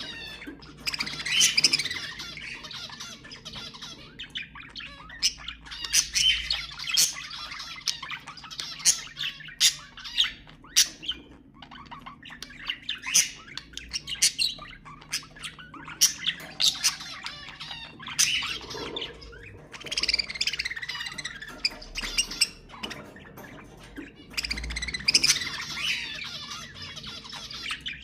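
Budgerigars chattering, warbling and squawking, with many sharp chirps overlapping throughout.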